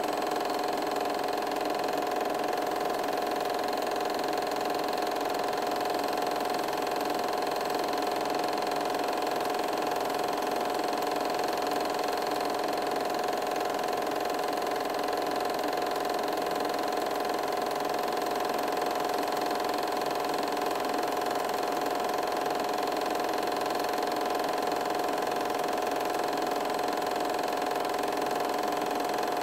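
8mm film projector running: a steady mechanical whir with a constant hum that does not change.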